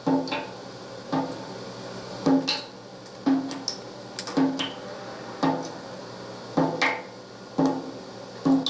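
A recorded sound effect played back from a stereo sound-effects cassette on a 1976 Sony TC-520CS. It is a regular series of knocks, each a sharp click with a short low thud, about one a second, over a steady tape hiss.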